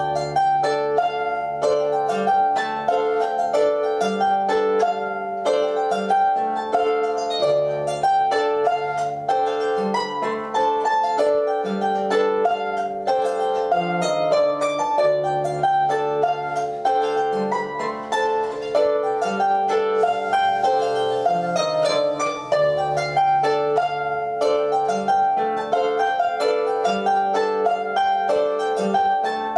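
Solo lever harp played with both hands: a quick plucked melody over a low bass line that changes every second or so. It is a tune inspired by old Breton biniou and bombarde music.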